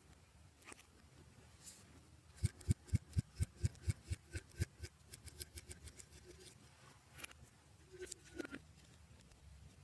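Slime being pressed and worked by hand, giving a quick run of wet clicks and pops, about five a second, that fade after a couple of seconds. A few scattered fainter pops follow.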